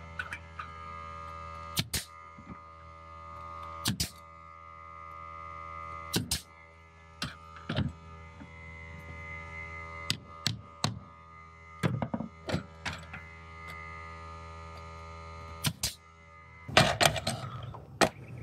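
Pneumatic coil nailer firing into batten trim on house siding: sharp shots, often two in quick succession, every second or two, with a quicker run of shots near the end. Steady background music plays underneath.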